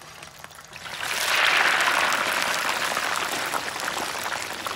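Hand-cut potato fries deep-frying in a pot of hot oil, sizzling hard with dense crackling. The fries are still a little wet, so the oil foams up in a vigorous boil. The sizzle swells about a second in.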